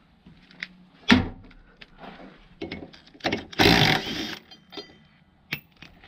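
Cordless impact driver with a socket hammering briefly on a 17 mm bolt in a washing machine's frame, a burst of just under a second past the middle. A sharp knock about a second in, the loudest sound here, and scattered clicks of tools and metal parts.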